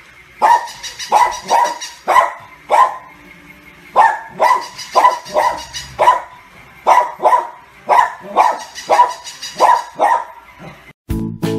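A small dog barking over and over, short sharp barks about two a second in short runs with brief pauses between them.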